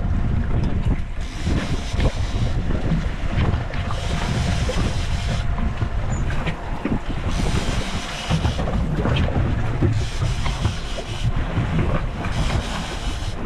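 Wind buffeting the microphone over the low rumble of a boat at sea, the hiss swelling and fading every second or two.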